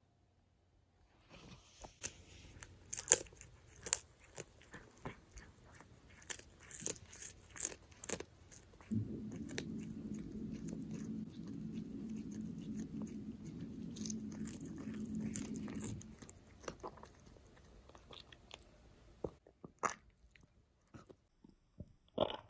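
Cat crunching and chewing a whole dried sprat, with many sharp crunches as the fish breaks up between her teeth. For several seconds in the middle a steady low hum runs under the chewing.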